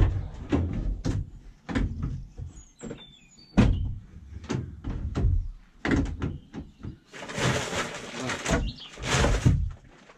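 Van rear doors unlatched and opened, then a string of knocks and clunks as tools and bags are shifted in the plywood-lined load area. Near the end come two longer rustling scrapes as a fabric tool bag is pulled out and lifted.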